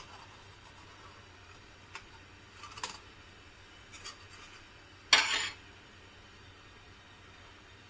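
Metal spoon clinking and scraping against the rim of an aluminium pan as ghee is smeared around its edge: a few light, short touches, then one louder scrape of about half a second a little past halfway.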